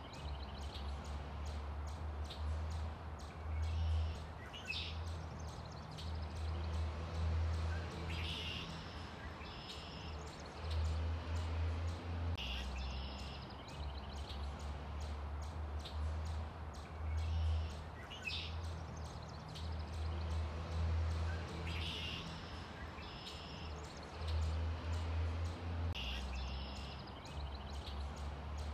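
Outdoor ambience: birds chirping every few seconds over a steady low rumble.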